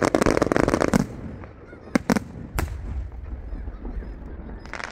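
Fireworks going off: a dense crackling burst for about the first second, then three sharp separate bangs around two to two and a half seconds in, with a low rumble between them.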